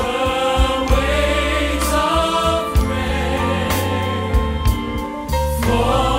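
Background music: a choir singing held chords over a sustained instrumental backing.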